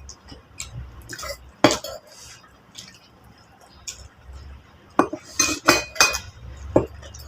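Plates and utensils clinking and tapping during a meal, scattered single clinks with a quick flurry of them about five to six seconds in.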